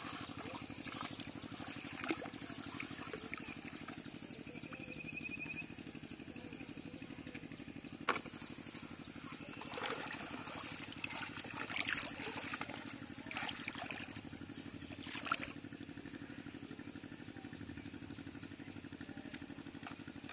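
Shallow paddy water splashing and sloshing in several short bursts as a person wades and handles the traps, over a steady low motor-like hum.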